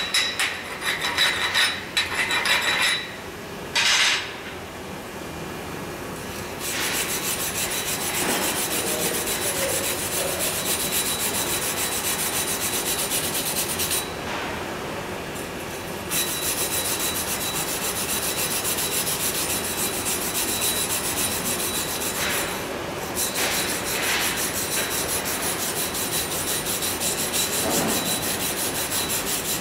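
A chipping hammer knocks slag off a freshly stick-welded vertical bead on steel plate, several sharp strikes in the first few seconds. Then a steel wire brush scrubs the bead clean, a rapid steady scratching that pauses for a couple of seconds about halfway.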